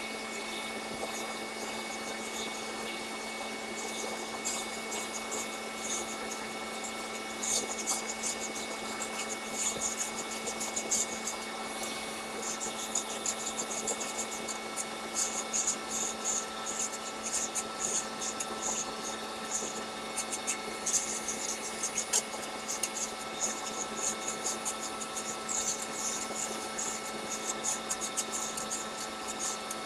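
Electric stand mixer running steadily as it whips egg whites and sugar. From about seven seconds in, rapid scratchy rasping comes in quick bursts as dry ingredients are stirred by hand in a stainless steel bowl.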